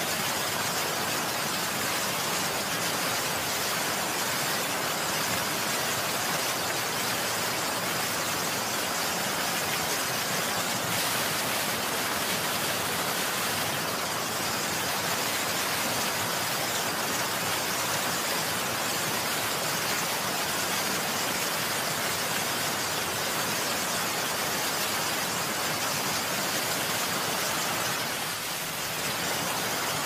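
Steady heavy rain: an even hiss of rainfall that dips slightly near the end.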